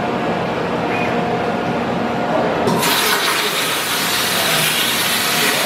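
Hypertherm Powermax plasma torch on a CNC table: a steady rush of air through the torch, then about three seconds in the arc strikes and cuts corrugated sheet metal with a loud, steady hiss.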